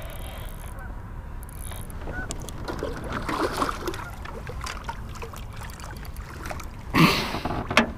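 Water splashing as a large fish is scooped into a landing net beside the boat, with a louder sudden splash-and-knock burst near the end followed by a few sharp clicks.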